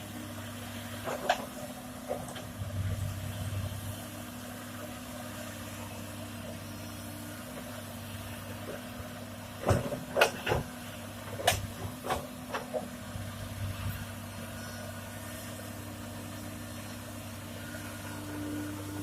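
Heavy diesel engine running at a steady speed, with a cluster of sharp knocks and clanks about ten seconds in, as of stone landing in a steel dump-truck bed.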